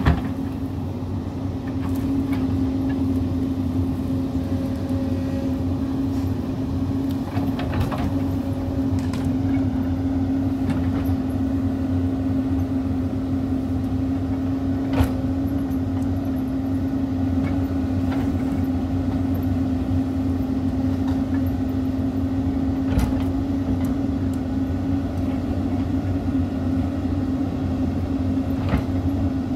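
Hyundai 220-class crawler excavator's diesel engine and hydraulics running steadily under load with a constant hum while the bucket digs into a dirt hillside. A few sharp knocks sound several seconds apart.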